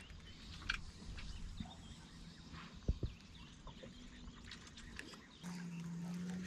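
Birds calling in the background with short chirps, and a couple of sharp knocks. About five seconds in, a steady low hum starts up and keeps going.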